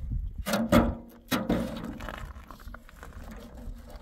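Metal wheelbarrow knocking and scraping on rock as it is tipped over: three sharp clanks in the first second and a half, then a rough scraping rattle that fades.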